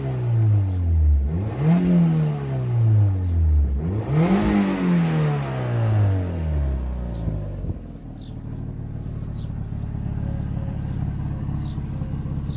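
Mazda MX-5's 2-litre four-cylinder engine being blipped twice, each rev rising quickly and dropping back, then settling to a steady idle about halfway through. It is running through a freshly repaired exhaust with a new pipe section clamped by U-bolts, with the back box off.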